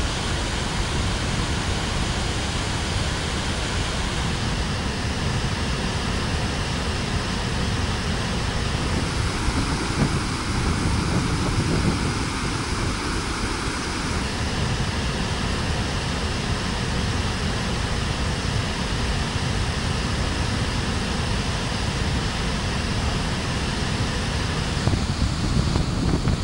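Large waterfall in flood: a steady, even rush of falling water.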